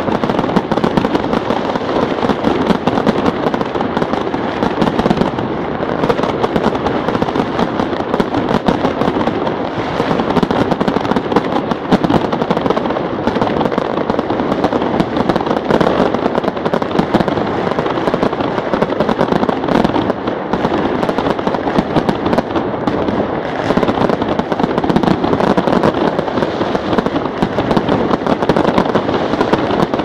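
Fireworks going off in a dense, unbroken barrage of loud bangs and crackling, with no pause.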